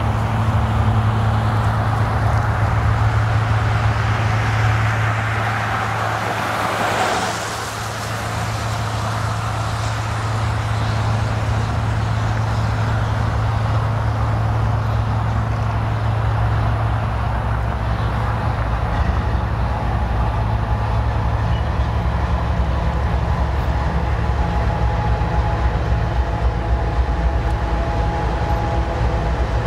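Diesel locomotives of a freight train, a GE ES44C4 leading GE C44-9W units, running with a steady low engine drone as the train approaches and passes.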